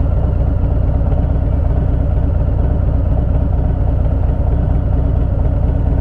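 Harley-Davidson Fat Bob's Milwaukee-Eight V-twin engine idling steadily with the bike stopped, heard from the rider's seat.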